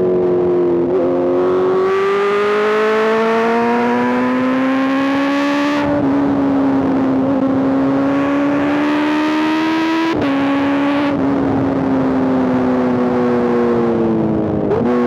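Honda CBR650R's inline-four engine through an Arrow aftermarket exhaust, heard while riding: the note rises under acceleration, steps down at a gear change about six seconds in, then falls slowly as the bike slows, with a quick rise in revs near the end.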